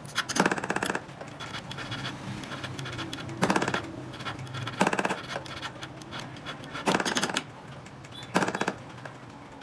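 A hand tool scraping metal in short strokes, about five of them a second or two apart, as a small 18k gold ring is worked at the jeweler's bench.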